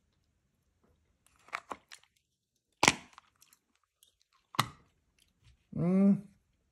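Handling of a small nicotine lozenge tin: a few light clicks, then two sharp clicks about a second and a half apart. Near the end comes a short hummed 'mm' that rises and falls.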